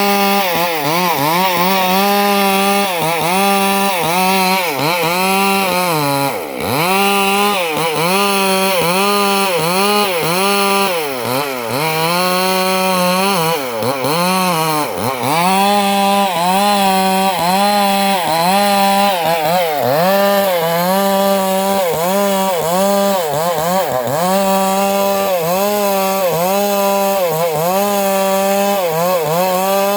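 Two-stroke chainsaw running at high revs while cutting teak wood. Its engine note wavers up and down about once a second as the chain bogs under load and recovers, with a few deeper dips in the first half.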